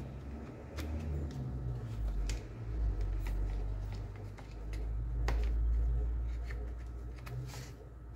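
Handling of cordless drill parts: gloved hands seat the motor and gearbox in the plastic housing, with a few scattered clicks and knocks of plastic and metal over a low rumble that swells in the second half. The motor is not running.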